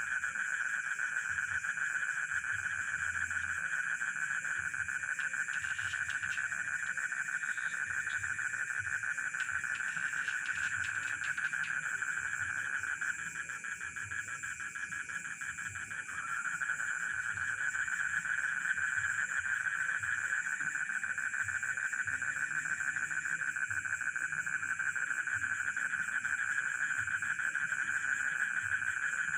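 Night chorus of rice-field frogs and crickets: a dense, continuous, finely pulsing chorus with a high steady trill above it. The main chorus drops away for about three seconds roughly halfway through, then resumes.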